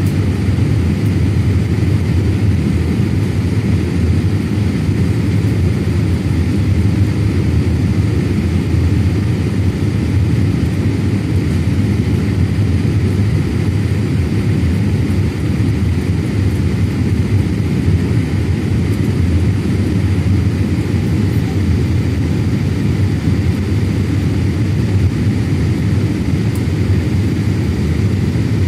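Steady cabin noise inside a Boeing 787-8 on descent: a low rumble of airflow and the Rolls-Royce Trent 1000 engines, with a faint steady whine above it.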